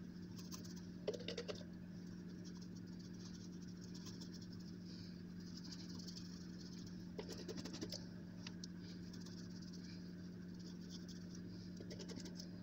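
A brush dabbing and spreading vulcanizing rubber cement on the buffed inner liner of a tire: a faint scratchy patter, with two short clusters of clicks about a second in and again near the eighth second, over a steady low hum.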